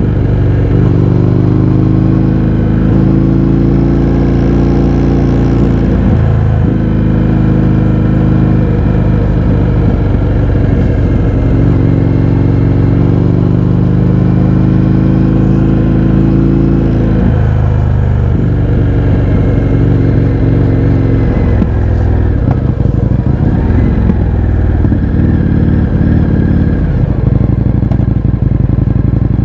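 Indian FTR 1200's V-twin engine running loud through an Akrapovič exhaust with the baffles removed, riding under way. The engine note climbs steadily and drops sharply twice, as at upshifts, then rises and falls with the throttle.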